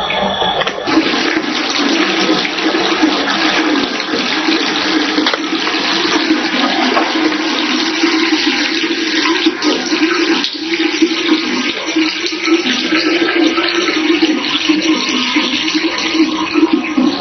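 Water running from a sink tap in a thin stream and splashing into the basin, a steady rushing that starts about a second in.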